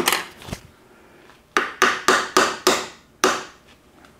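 A hand tool knocking on metal while a rusted, stuck speedometer gear is worked loose from a T10 four-speed's extension housing. There is one sharp click at the start, then a quick run of about six sharp metallic knocks, roughly four a second, each ringing briefly.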